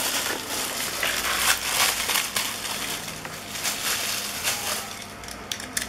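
A bag being torn open and crumpled by hand: a dense crinkling rustle with many sharp crackles, easing off near the end.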